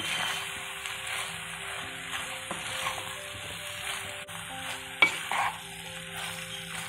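Boiled shell pasta being stirred into tomato masala gravy in a hot nonstick pan with a wooden spatula, with a steady sizzle. There is a sharp knock about five seconds in.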